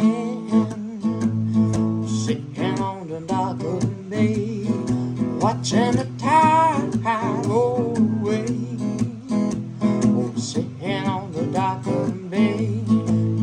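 Acoustic guitar strummed and picked as a song's accompaniment, with a wordless vocal melody gliding over it.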